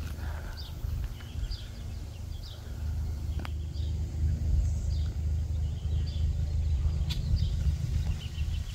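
Wind buffeting the microphone with a low, uneven rumble that grows stronger a few seconds in, while small birds chirp repeatedly in the background.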